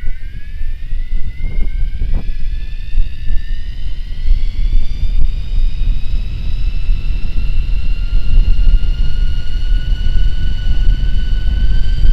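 Electric mountain bike's motor whining, its pitch climbing slowly and steadily as the bike picks up speed. Heavy wind rumble on the microphone underneath it.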